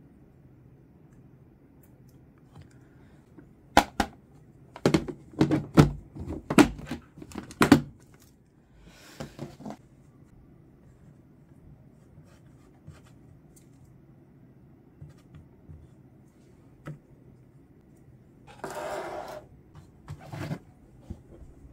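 Handling noises from working with plants and pots: a run of sharp knocks and clicks about four to eight seconds in, then short bursts of rustling and scraping about nine seconds in and again near the end.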